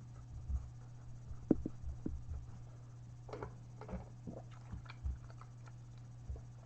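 Someone eating a Nashville hot chicken sandwich: scattered soft mouth clicks, smacks and chewing noises with a few light knocks from handling, busiest in the middle, over a steady low hum.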